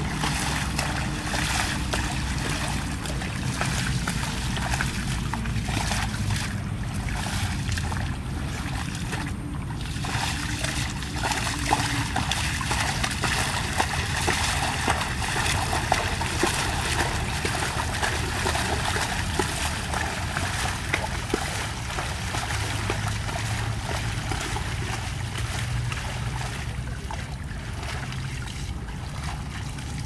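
Water buffalo wading through shallow water, its legs splashing and sloshing the water step by step, over a steady low rumble.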